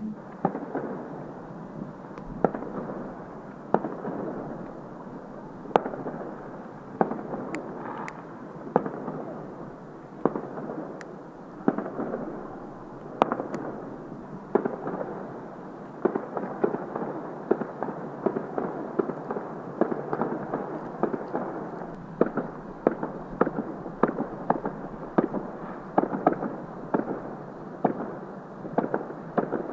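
Fireworks display: a continuous crackle with many sharp bangs at irregular intervals, coming faster and more evenly in the last third.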